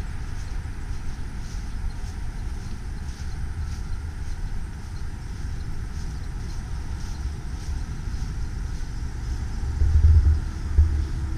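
Wind buffeting the camera microphone, a low uneven rumble that swells about ten seconds in.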